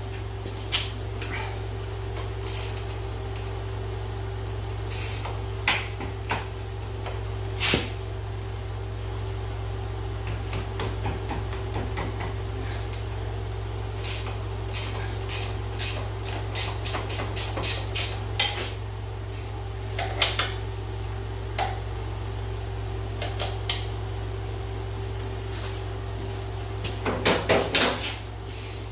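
Hand tools working on the bolts of an ATV's front lower A-arm to remove it: scattered metal clinks and knocks, a run of quick ratchet clicks in the middle, and a louder clatter near the end. A steady low hum runs underneath.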